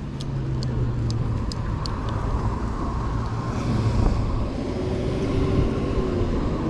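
Steady low road and wind rumble from riding a Phantom Sit and Go C1 electric scooter at low speed, with car traffic running close by.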